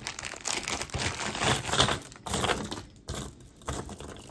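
Beaded necklaces, glass pearls among them, clicking and clattering together in irregular bursts as they are handled.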